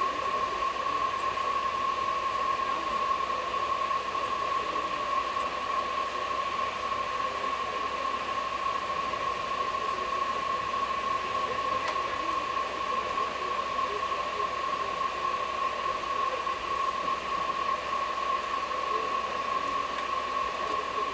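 Steady running noise of a moving passenger train heard from inside an air-conditioned coach, an even hiss with a constant high-pitched hum through it.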